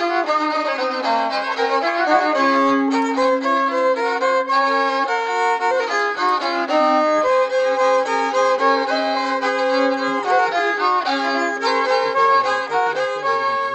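Fiddle music, with a bowed melody of held notes and other notes sounding together beneath it.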